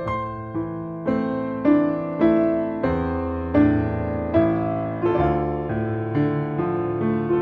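Background piano music: single notes struck at a slow, even pace, each ringing and fading, over lower held chords.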